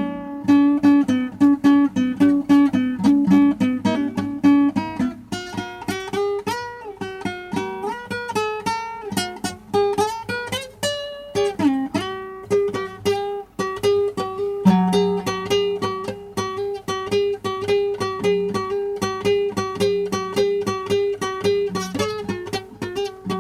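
Improvised solo blues on plucked strings: quick runs of notes over a low note that keeps sounding underneath, which shifts up a step about five seconds in.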